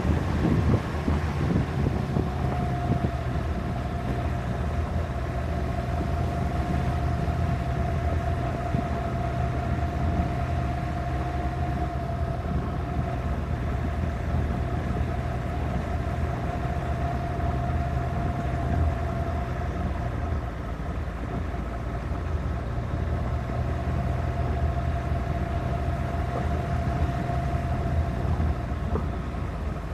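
Suzuki Grand Vitara SUV driving along a gravel track, heard from a camera on its roof: a steady low engine hum and tyre noise, with a thin steady whine over it from about two seconds in until near the end.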